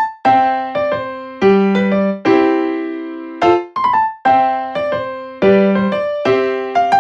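Background music: a light, bouncy melody of struck keyboard notes, each ringing briefly and dying away.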